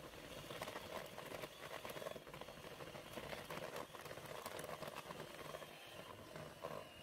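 Bluesky electric hand mixer running steadily, its beaters working flour into cake batter.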